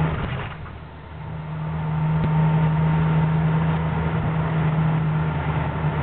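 Vehicle engine and road noise heard from inside the cab while driving: a steady low drone that drops away briefly about a second in, then comes back and holds steady.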